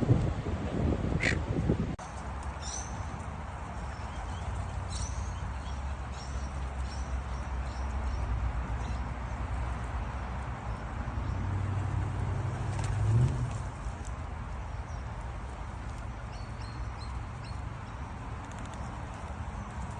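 Birds calling: a few loud, harsh calls in the first two seconds, then faint high chirps over a low steady rumble.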